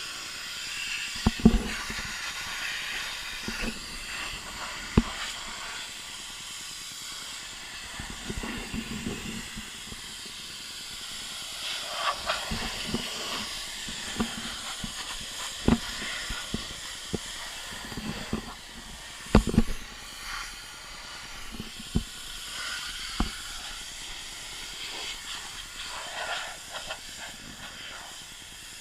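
Pressure washer spray hissing steadily against a car's bodywork, with scattered sharp knocks and thumps throughout, the loudest about a second and a half in and again near the middle.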